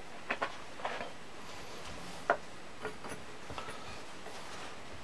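A few light metal clicks and taps as small parts of an old Record No. 5 vice are handled while it is taken apart, the loudest about two seconds in.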